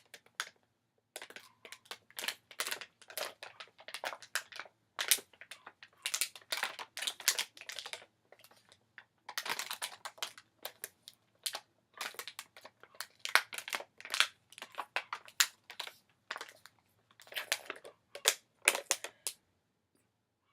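A person drinking water in a long run of gulps and swallows, heard as irregular clicks with two short pauses, to stop hiccups.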